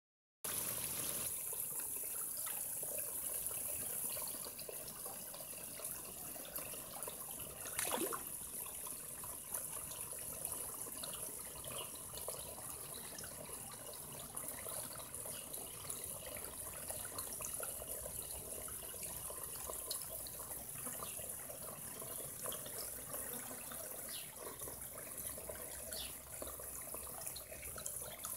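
Steady trickling and splashing of water running into a garden koi pond, with small drips and plops throughout. There is one sharp knock about eight seconds in.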